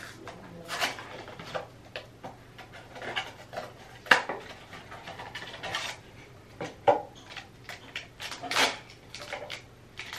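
Pregnancy test packaging being opened by hand: a cardboard box and the wrapper handled and torn, giving an irregular run of crinkles and clicks, the loudest about four seconds in.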